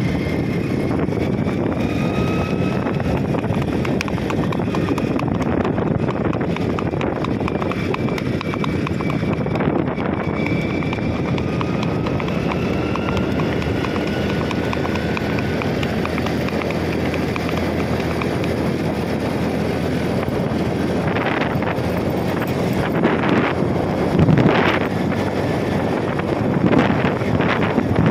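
Horse's hoofbeats, the clip-clop of a horse going at a brisk gait along a roadside, over steady engine and wind noise from travelling alongside. A few louder bumps come near the end.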